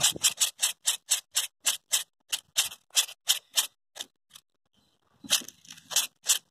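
Large green grasshopper held in the hand, rattling its wings in quick dry bursts, about five a second, with a short break a little after four seconds. It is a noise likened to a rattlesnake's rattle.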